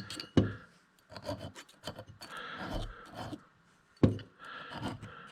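Burrs being taken off a freshly milled keyway in a metal sprocket hub by hand: a series of short rasping strokes with brief pauses, and a sharp knock near the start and another about four seconds in.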